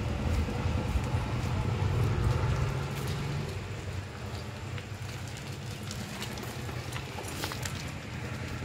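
A motor vehicle's engine running with a steady low hum, loudest for the first three seconds or so and then fading to a weaker drone, with a few light clicks near the end.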